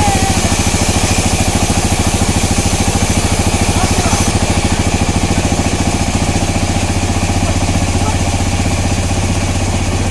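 A sawmill's engine running steadily with a fast, even pulse.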